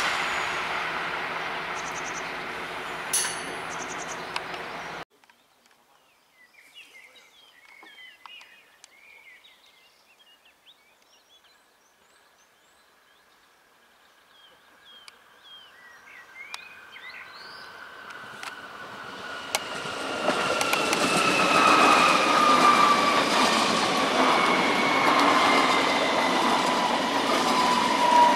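A passing train, cut off abruptly about five seconds in, then birds chirping in near quiet. A Munich S-Bahn class 423 electric multiple unit then approaches and runs close past, its rail noise growing loud and its motor whine falling slowly in pitch.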